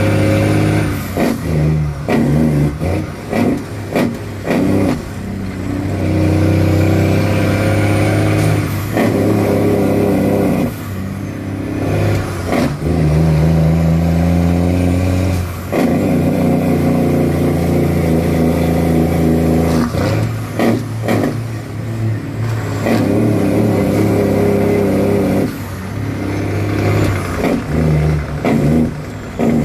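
A truck's engine heard from inside the cab, pulling hard, repeatedly falling off briefly and picking up again, with a faint rising whine high above it.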